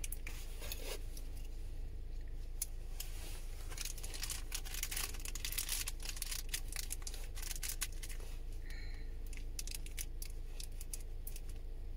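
Crinkling and tearing of instant-noodle seasoning packets, with many irregular sharp clicks, over a steady low hum.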